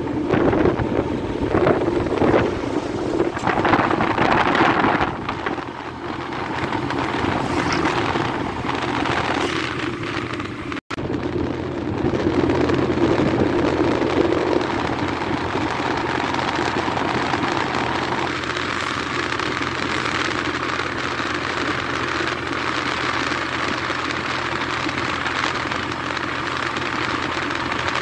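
Steady noise of a moving vehicle: engine hum under tyre and wind rush, with a brief dropout a little under halfway through.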